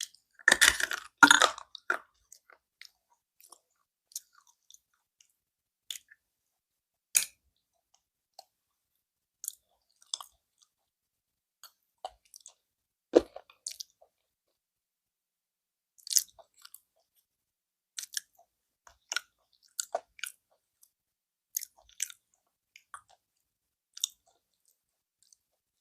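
Slate pencil bitten and chewed close to the microphone: a dense burst of crunching in the first second and a half, then single sharp crackles every second or so as the pieces are ground between the teeth.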